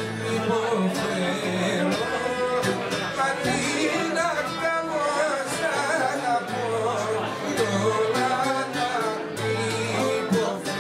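Small acoustic band playing a Greek song live: a violin's wavering melody over a plucked lute and double bass.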